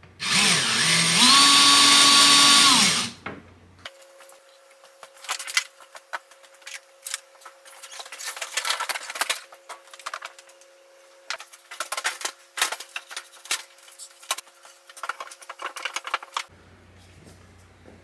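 Power drill running in one burst of about three seconds, its whine rising in pitch and then holding steady, driving a mounting screw through the power strip's tab into the wall. After it, scattered clicks, taps and rustles of handling.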